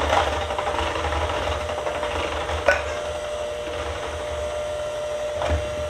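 Electric hand mixer whirring steadily as it beats evaporated milk into pumpkin pie filling in a stainless steel bowl, with one sharp clink about halfway through.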